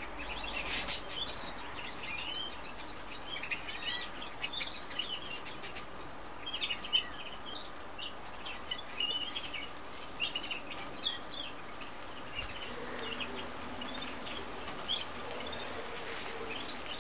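Yorkshire canary singing in a string of short, quick chirps and trills over a steady background hiss.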